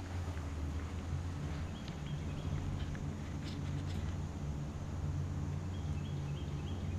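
Outdoor ambience: a steady low rumble, with two short runs of quick high chirps from a bird, about two seconds in and again near the end.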